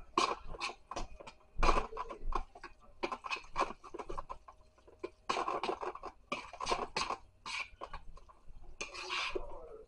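A metal fork stirring spicy sauce through instant noodles in a bowl: irregular clinks and scrapes of the fork against the bowl, busier about five seconds in and near the end.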